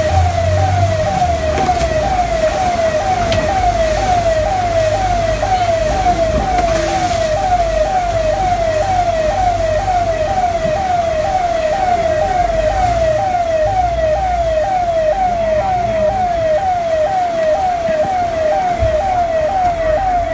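Siren with a fast repeating falling tone, about two falls a second, over a low rumble.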